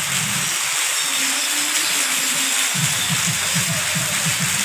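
Park fountain jets spraying water: a steady rushing hiss.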